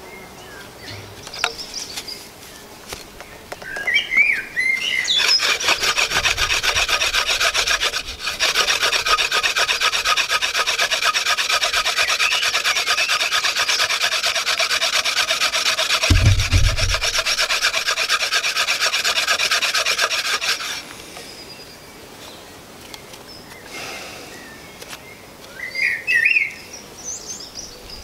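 Hand-drill friction fire: a wooden spindle twirled fast back and forth between the palms, its tip grinding in the hearth board's notch with a rapid, pulsing wood-on-wood rasp and squeak. It starts a few seconds in, breaks off briefly, then runs on until about three-quarters of the way through, with a low thump partway. The drill is making sawdust rather than an ember.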